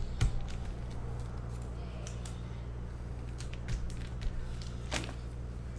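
Scattered soft clicks and rustles of trading cards and card packs being handled on a desk, over a steady low electrical hum.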